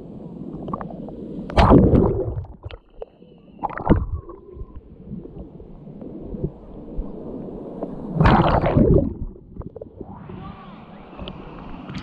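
Shallow sea water sloshing and gurgling around a camera held at the waterline, turning muffled whenever it dips under. Breaking waves splash loudly over it about a second and a half in and again about eight seconds in.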